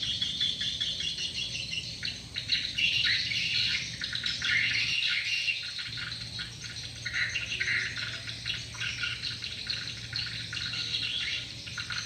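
Swiftlets twittering in a dense, continuous chorus of quick, high chirps. These are the calls of a swiftlet lure recording played to draw the birds to a swiftlet house. A steady low hum runs underneath.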